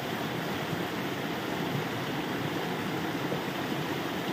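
Steady rush of a shallow stream and a small waterfall, running water with no break or change.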